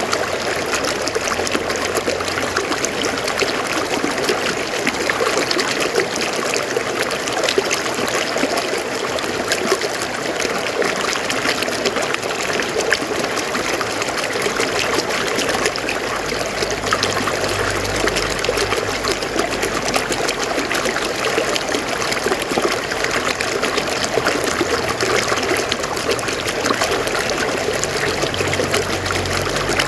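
River water flowing and splashing over rocks: a steady rush with a constant patter of small splashes.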